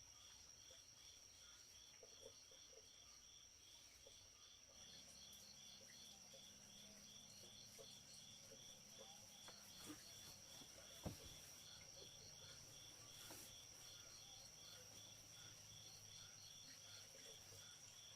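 Faint insects chirping: a steady high buzz with a pulsed chirp repeating a few times a second, and a single sharp click about eleven seconds in.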